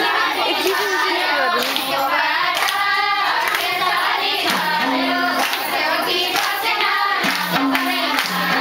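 A group singing a Nepali Teej folk song, with hand clapping keeping time. About halfway through, a low repeating two-note accompaniment joins in.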